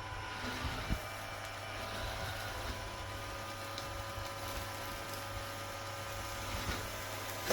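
iRobot Roomba j7+ robot vacuum running: a steady motor whine with several fixed tones over a low hum, and a light knock about a second in.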